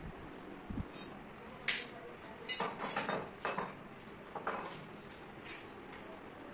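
Scattered light metallic clinks and taps, metal on metal. The sharpest comes a little under two seconds in, with a quick run of several clinks in the middle.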